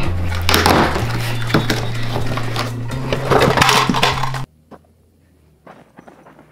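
Cardboard shipping box being torn and pulled open, with ripping and rustling over background music with a bass line. Both cut off suddenly about four and a half seconds in, leaving a few faint footsteps on gravel.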